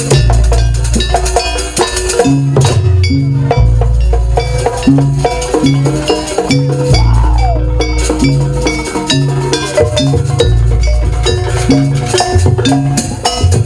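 Live Javanese gamelan accompaniment for jaranan sampak dance: bronze kettle gongs and other percussion play a busy repeating pattern over recurring deep low strokes.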